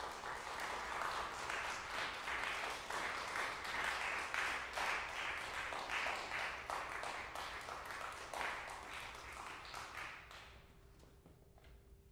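Audience applauding: dense clapping that dies away about ten seconds in.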